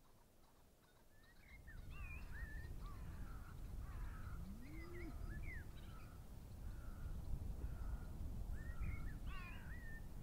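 Several crows cawing in a loose, overlapping chorus of short calls, with wind rumbling on the microphone from about a second and a half in.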